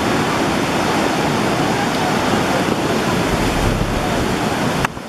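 A river in flash flood: fast, muddy floodwater rushing and churning with a loud, steady rush of noise. The level dips briefly just before the end.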